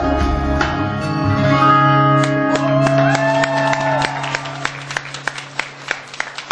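The last bars of a vocal group's live song, with a held sung note and backing music, ending about four seconds in. A low note fades out under scattered audience clapping that starts as the music dies away.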